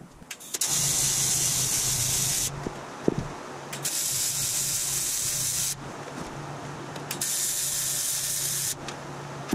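AC TIG welding arc on 0.063" 3003 aluminum sheet: three bursts of crackling hiss, each about two seconds, over a steady low buzz that carries on between them as filler rod is fed into the seam of a gas tank.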